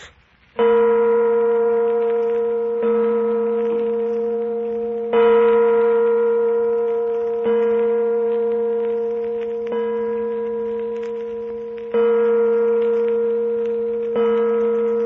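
A bell tolling slowly: seven strokes about two seconds apart, each on the same note and ringing on, fading until the next stroke.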